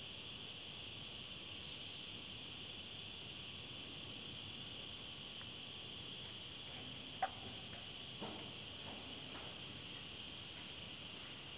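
A steady, high-pitched chorus of insects, with a few faint clicks and one sharper click about seven seconds in.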